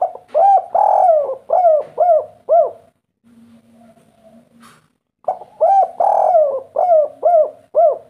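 Spotted dove cooing its song twice. Each phrase is a short opening note, one long drawn coo, then three short arched coos: the 'kuk 3' song type.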